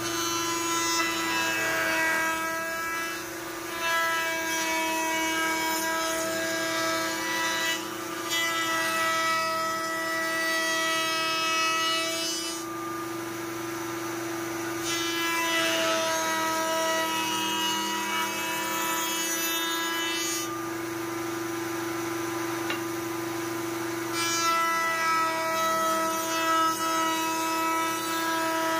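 Router table running a roundover bit: the router motor holds a steady high pitch, and several times over the bit cuts along the edge of a curved wooden piece being fed past it, each pass a few seconds of fuller, rougher cutting sound.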